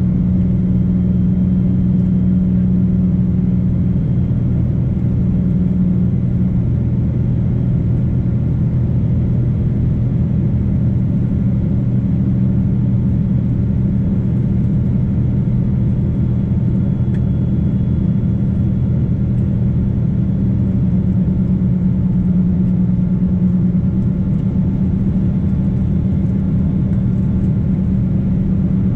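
Steady engine drone of a Boeing 777-200's twin turbofans heard inside the cabin, a low, even hum with no breaks.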